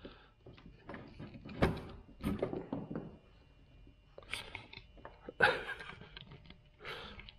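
Scattered clicks and knocks of gear being handled, with a few sharper knocks spread unevenly through.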